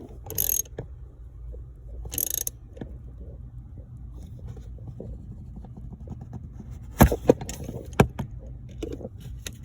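Metal tools clinking and scraping as a shear bolt is fitted and tightened on a steering-column ignition lock. Two brief jangles come in the first few seconds, then sharp metallic clicks about seven and eight seconds in.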